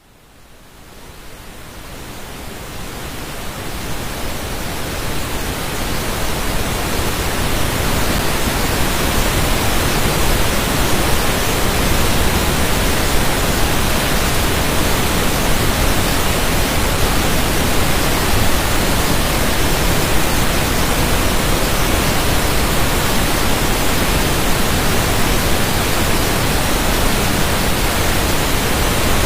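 Steady rushing water, an even hiss across all pitches with no rhythm, fading in from silence over the first several seconds and then holding steady.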